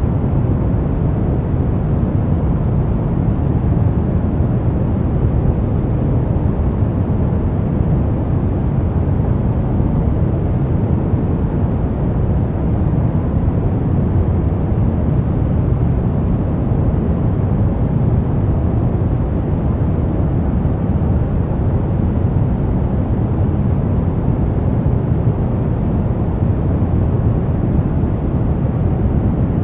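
Steady brown noise: an even, deep rush with most of its weight in the low end, unchanging throughout.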